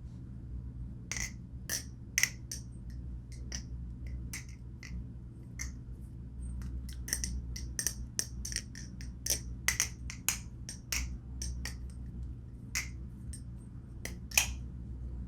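Balisong butterfly knife clicking and clacking as it is handled and flipped: a long run of irregular sharp clicks, a few of them louder.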